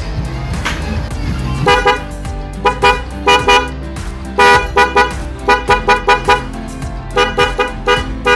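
Anti-cempreng (non-shrill) horn on a Honda PCX scooter giving short 'tot tot' beeps in quick runs of two to four, with one slightly longer blast midway. Background music plays underneath.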